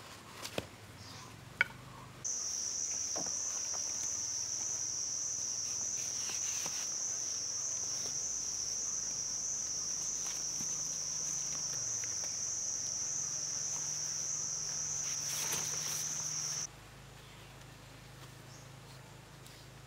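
Steady high-pitched insect drone that starts suddenly about two seconds in and cuts off about three seconds before the end. A couple of sharp clicks come near the start as vines are handled.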